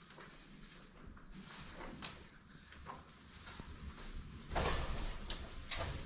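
Handling noises: soft rustling with a few sharp knocks and clicks, the loudest a rustle about four and a half seconds in, followed by two clicks.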